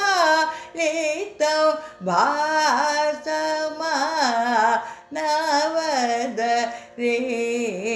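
A woman singing a Carnatic kriti in raga Shubhapantuvarali, drawing out long vowels with sweeping, wavering ornaments (gamakas) that bend the pitch up and down.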